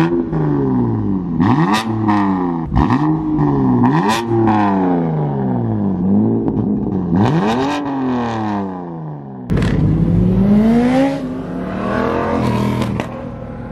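A car engine revved hard again and again, its pitch rising and falling with each blip, with sharp exhaust pops between the revs.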